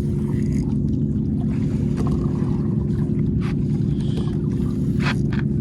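Boat engine running steadily with a low drone, with a few sharp knocks on top.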